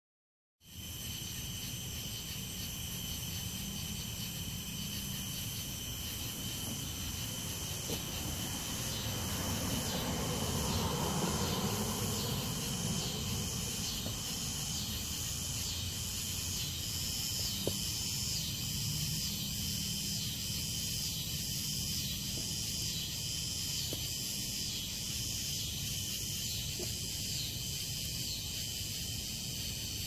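Night-time insects calling: a steady high trilling chorus, joined from about ten seconds in by a pulsing call that repeats about once a second.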